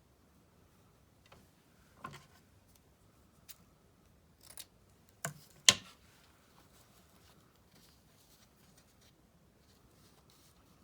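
Scissors snipping: a handful of short, sharp cuts at uneven intervals, the loudest about halfway through.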